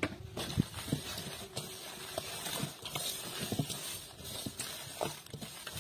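Hands tossing and mixing raw offal chunks in a large enamel basin: irregular wet slaps of meat and knocks against the enamel.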